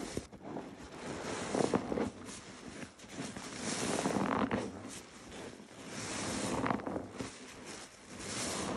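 Wet yellow cellulose sponge squeezed and lifted through thick soap suds: squelching and crackling foam that swells and fades with each squeeze, every couple of seconds.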